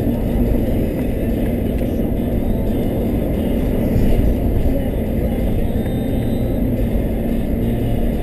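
Steady low rumble of a car being driven, heard from inside: engine and road noise with a faint steady hum.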